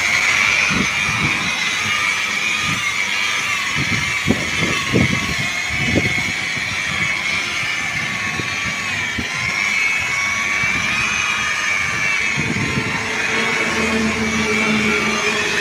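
Hand-held electric rotary polisher running against a car's bodywork, a steady motor whine whose pitch wavers slightly as the pad is pressed on, while Teflon polish is buffed into the paint. A few low knocks come in the first six seconds, and a low hum joins near the end.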